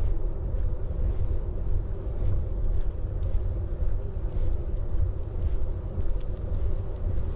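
Wind buffeting an action camera's microphone: a steady, gusting low rumble with a faint hum above it.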